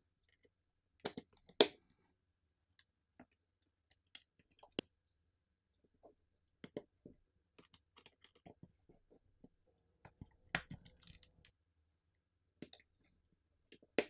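Scattered small clicks and taps of a smartphone's internal parts being handled and pressed into place as the phone is reassembled. The clicks come one to a few seconds apart, the sharpest a little over a second in and again past the ten-second mark.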